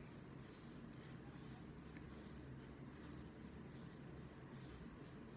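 Faint, rhythmic swishing of hands rubbing back and forth over a cotton top along the rib line, a soft stroke a little more than once a second, over a low room hum.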